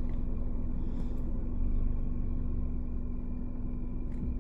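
Steady low rumble of a car's engine running, heard from inside the car, with a constant low hum.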